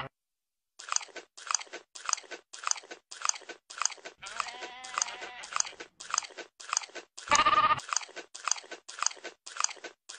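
A goat chewing close up: steady crunching, two to three crunches a second. A goat bleats faintly around the middle, then once short and loud about three quarters of the way in.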